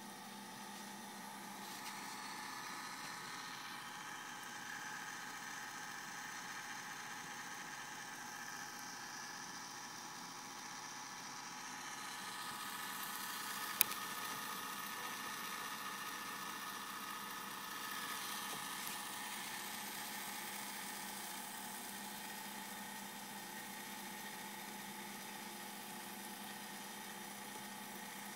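Small DC gear motor of a filament winder running steadily, a constant whir and hum as it drives the filament rollers. One sharp click about halfway through.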